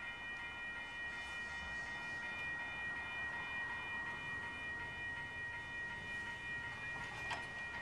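Railroad grade-crossing warning bell ringing steadily as the crossing signals warn of an approaching train, with a short click near the end.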